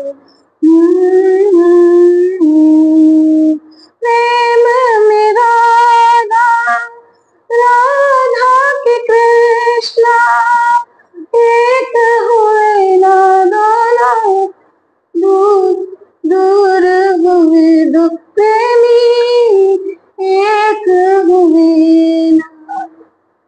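A woman singing a Hindi devotional bhajan to Krishna, unaccompanied, in melodic phrases broken by short pauses for breath.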